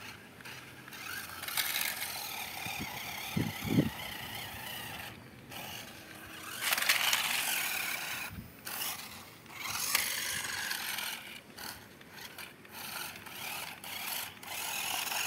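A toy RC rock crawler's small electric motor and gearbox whirring, swelling and dropping off several times as the throttle is worked over rough ground. Two short low knocks come about three and a half seconds in.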